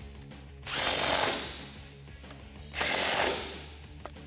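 Milwaukee Fuel cordless impact driver run twice, about a second each time, hammering windshield-bar bolts tight.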